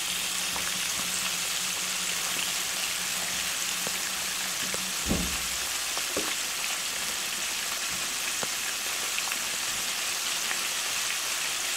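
Floured pejerrey fillet strips wrapped around olives deep-frying in a pan of hot oil: a steady sizzle, with one soft bump about five seconds in.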